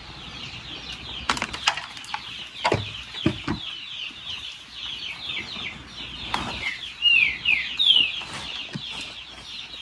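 Many chicks peeping in a dense, continuous chorus of short falling notes, with a few louder peeps about seven to eight seconds in. A handful of short knocks sound between about one and four seconds in.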